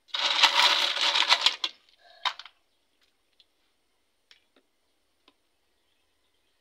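Hard boiled Nkonko shells clattering in a metal pot for about a second and a half as a handful is taken up, with a second short rattle about two seconds in. After that only a few faint, scattered clicks of shell and needle as the meat is picked out.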